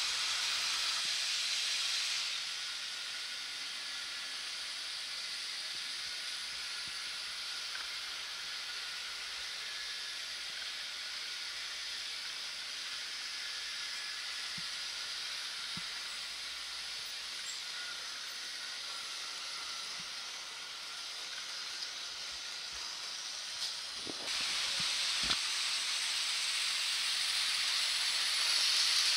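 Model trains running past on a model railway layout: a steady rolling hiss of small wheels on the track with a faint motor hum, getting louder about two seconds in and again near the end, with a few light clicks.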